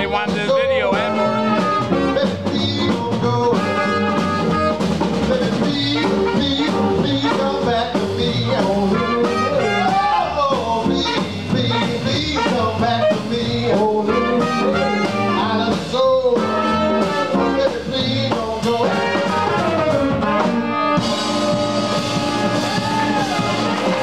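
A live band playing a dance number: saxophone, electric guitar and drum kit together, with the whole band getting fuller and louder near the end.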